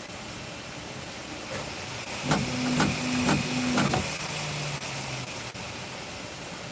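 Bambu Lab P2S 3D printer running: a steady fan hiss. In the middle come about four sharp clicks half a second apart, with its motors humming through short moves, and then one more short hum.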